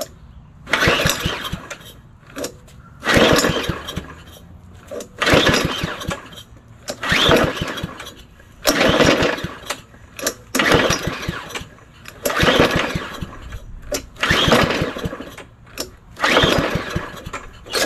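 Yard Machines lawn mower's small engine being pull-started about nine times, one yank of the recoil rope every two seconds or so. Each pull is a short burst of rope and cranking, but the engine never fires or catches.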